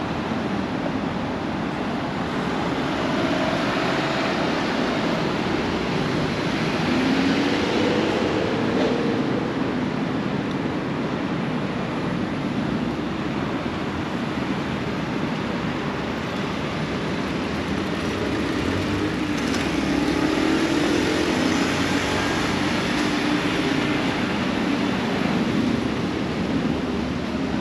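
Steady road-traffic noise under an elevated expressway: a continuous rumble of cars, with engine tones rising and falling as vehicles pull away through the intersection now and then.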